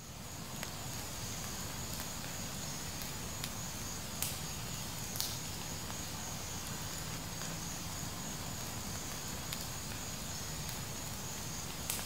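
Wood fire crackling: a steady hiss with occasional sharp pops every few seconds.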